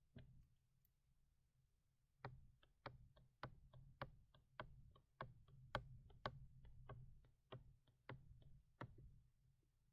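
Faint, sharp clicking taps of short dabbing strokes while colouring in a digital painting program, roughly three a second, starting about two seconds in and stopping shortly before the end, with one lone click at the start.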